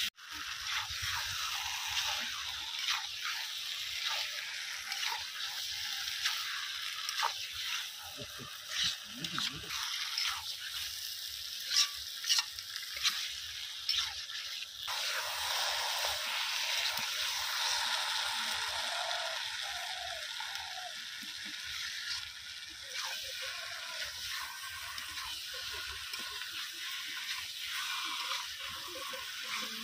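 Chicken pieces frying in oil in an iron kadai: a steady sizzle with scrapes and clicks from stirring. A few louder knocks come in the middle.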